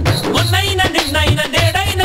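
Upbeat background music with a steady beat; a wavering melody line comes in about half a second in.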